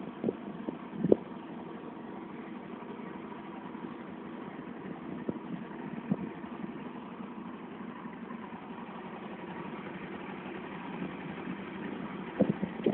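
A motor vehicle's engine running steadily while travelling, with a few short knocks or rattles, about a second in, around five and six seconds in, and several near the end.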